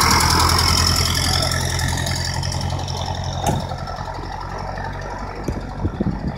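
The vintage speedster's freshly rebuilt engine runs steadily as the car drives off, growing fainter as it pulls away.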